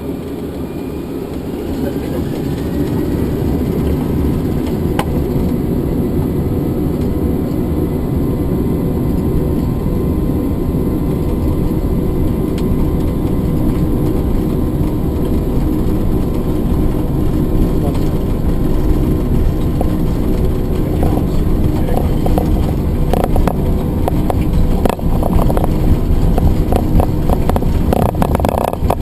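Airliner jet engines spooling up with a rising whine, then a steady heavy roar that grows louder through the takeoff roll. From about two-thirds of the way in, rapid knocks and rattles from the runway join it.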